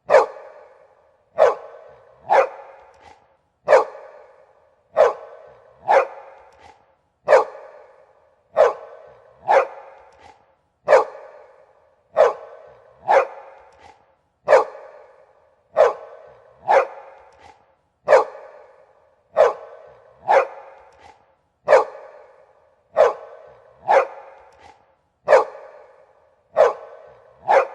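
A big dog barking over and over, single loud barks about once a second, each trailing off in a short echo.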